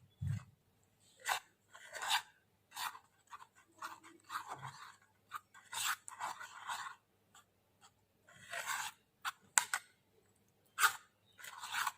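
A spoon stirring and scraping a thick paste of turmeric and honey in a small bowl, in uneven strokes with short pauses.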